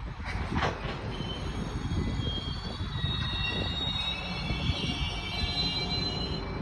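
GO Transit commuter train rolling into the station with a low rumble. About two seconds in, a high, multi-toned squeal of wheels and brakes sets in and grows stronger toward the end as the train slows.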